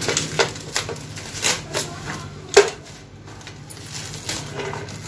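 Irregular sharp knocks and clicks of metal automatic-transmission parts being handled and set down, the loudest about two and a half seconds in, over a steady low hum.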